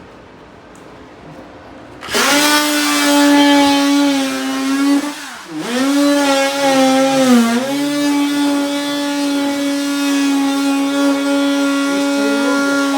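An electric power tool starts about two seconds in and runs at a steady high pitch, bogging down in pitch twice, as it does when pushed into a cut, before running steadily again.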